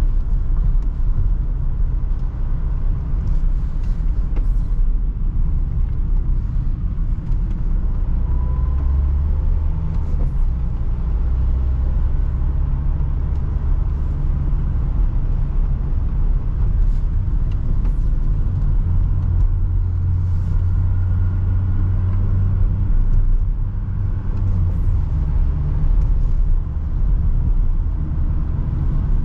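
Renault Trafic van heard from inside the cab while driving: a steady low engine and road rumble, the engine note shifting now and then, with faint scattered ticks.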